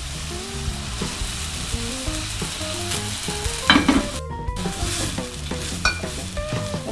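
Boiling seasoned liquid bubbling and sizzling in a wok as soaked glass noodles are dropped in and stirred with a spatula, with a steady hiss and a few sharper knocks and scrapes of the spatula, the loudest about halfway through.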